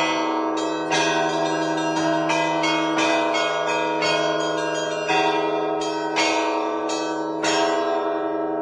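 Russian Orthodox church bells rung by hand: quick strikes on small bells over the steady ring of larger bells, with heavier strikes every second or so. The strikes stop near the end and the bells ring on.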